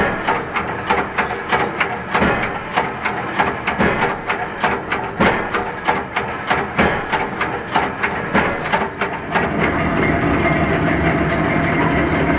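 Metal surgical scissor blanks clinking and clattering against each other as they are handled and bundled, a quick run of sharp knocks about three a second. About nine seconds in, this gives way to a steady mechanical noise.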